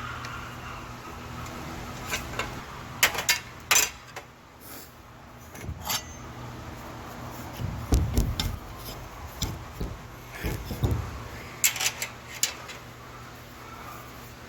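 Metal clicking and clinking of a hand crimper being worked on a steel aircraft cable and turnbuckle. Sharp clicks come about three seconds in and again near the end, with a few low knocks in the middle, over a steady low hum.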